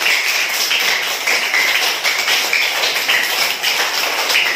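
A group of children clapping their hands together in steady applause.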